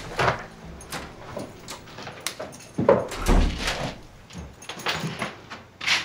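A front door being unlocked with keys and opened, heard as a series of clicks, rattles and knocks, with a heavier thud about three seconds in.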